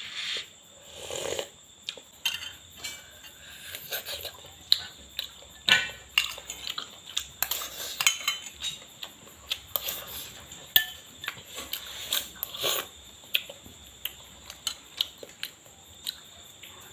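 Kitchen utensils clinking and scraping against cookware in short, irregular knocks, several each second, as food is handled or stirred.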